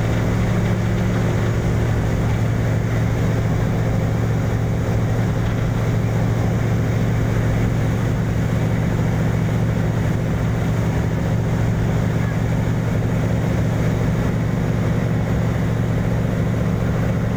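Passenger ferry's diesel engines running steadily under way at about 18 knots: a deep, even drone. Over it is the rush of the wake and the wind along the hull.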